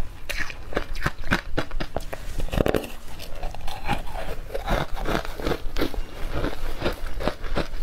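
Close-up bites and chewing of soft powdery ice dusted with matcha powder: dense, irregular crunching and crackling, several crunches a second.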